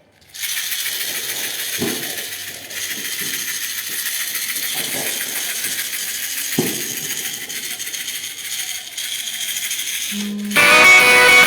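A hand rattle shaken steadily, giving a dense, even hiss with two soft knocks. About ten seconds in, a louder pitched string instrument starts playing, the bamboo berimbau being tested.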